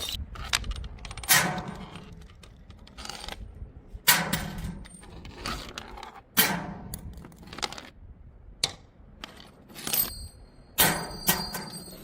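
Glass bottles knocking and clinking on stairs: about seven separate sharp hits with short decays. The hits in the last couple of seconds leave a high, bell-like ringing.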